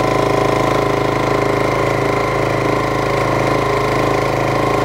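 Janome 1600P straight-stitch quilting sewing machine stitching steadily at full speed.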